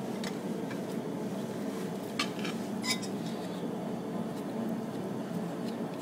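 Metal farrier's tools clinking, a couple of sharp clinks a little over two seconds in and another near three seconds, over a steady low rushing noise.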